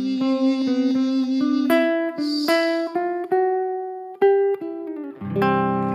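Acoustic guitar played solo: a man's last sung note held for the first two seconds over it, then single plucked notes ringing one after another, closing with a fuller strummed chord.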